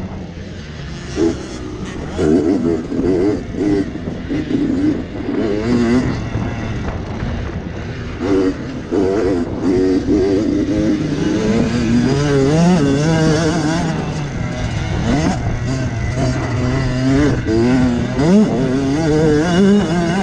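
Supermini motocross bike engine revving hard and falling back again and again as the rider accelerates, shifts and rolls off through the track's corners and jumps.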